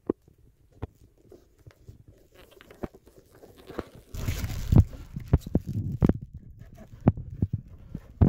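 Handling of a shrink-wrapped iPhone X box: scattered taps and clicks of fingers on the box, then from about four seconds in a louder stretch of rustling and crinkling as the plastic wrap is picked at and peeled off.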